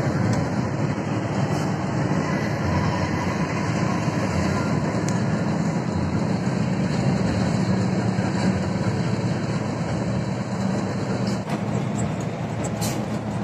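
Cabin noise of an intercity bus cruising at highway speed: a steady low drone of engine and road noise.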